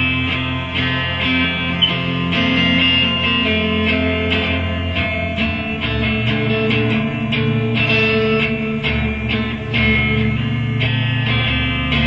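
Electric guitar being played: picked and strummed chords and notes that ring on and change every second or so.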